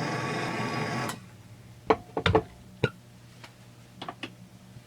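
Hand-held torch flame burning steadily while the magnesium chainsaw crankcase is heated, shut off suddenly about a second in; then a few sharp clicks and knocks of metal parts being handled.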